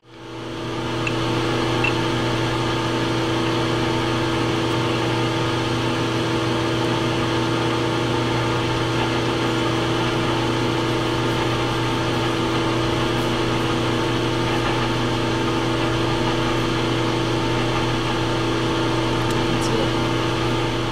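Metal lathe running at a steady speed, its motor and spindle drive giving an even, unchanging hum.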